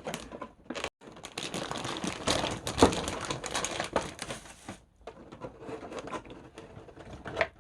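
Packaging and small parts being handled: a dense run of irregular rustling and clicking that thins out to scattered clicks after about five seconds.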